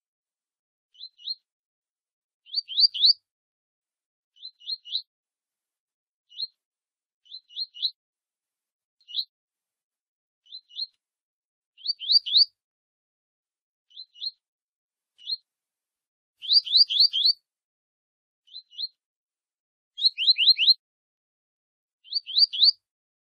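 Double-collared seedeater (coleiro) giving its short 'tui tui' song: quick, high, falling notes in bursts of one to six, a second or two apart. The longest bursts, about two-thirds of the way in and near the end, are the loudest.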